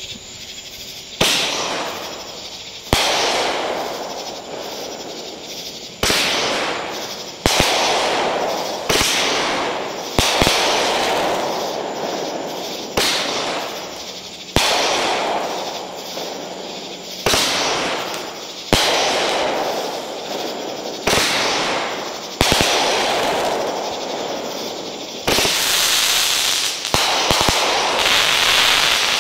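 Sun's Fireworks 16-shot, 500-gram consumer cake firing its shots one after another, about one every one and a half seconds. Each shot is a sharp report followed by a crackling tail that dies away, with a louder, longer crackling burst near the end.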